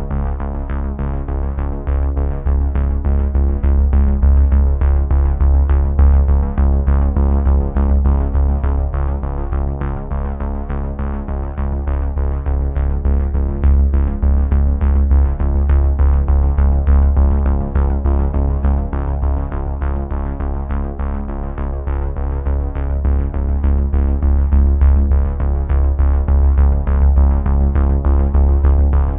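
Electronic background music: sustained synthesizer chords over a steady beat and deep bass.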